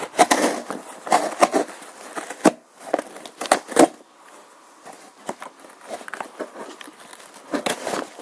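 A product box and its packaging being worked open by hand: irregular crinkling and rustling with sharp clicks and scrapes, busiest in the first four seconds and again briefly near the end.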